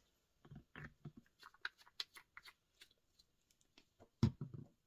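Paper and craft materials handled on a work mat: a string of small taps, clicks and paper rustles, with a louder knock about four seconds in.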